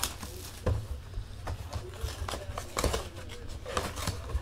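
Trading card boxes being handled and opened on a table: irregular taps, knocks and clicks of cardboard, with some light rustling.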